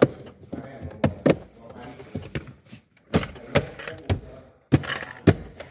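Plastic dashboard trim cover around a car radio being pressed and knocked into its snap-fit clips: a string of sharp clicks and knocks, several in quick pairs.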